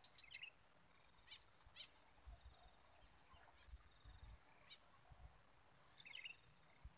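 Near silence: faint swamp ambience of a steady high-pitched insect drone, with a few short chirps scattered through.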